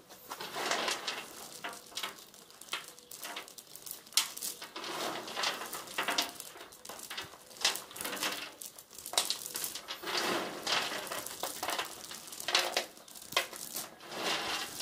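Handfuls of freshly made sawdust pellets being scooped up and dropped back into a wheelbarrow tub, the small wooden pellets rattling against each other and the tub in repeated irregular bursts.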